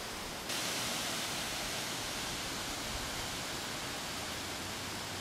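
Steady, even hiss of outdoor background noise with no distinct event, stepping up slightly about half a second in.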